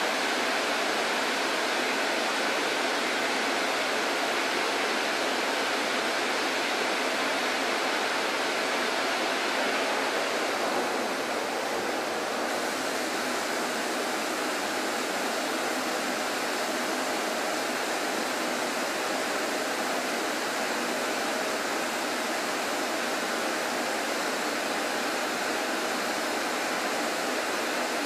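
High-pressure coolant spraying from the spindle of a Makino five-axis horizontal machining centre while it mills a titanium part: a steady rushing hiss with no clear tone or rhythm.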